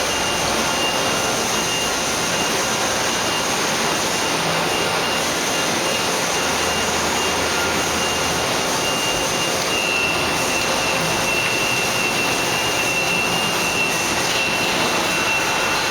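Steady rushing machine-shop noise with a thin high whine running through it, and a low hum that comes in for a few seconds in the middle.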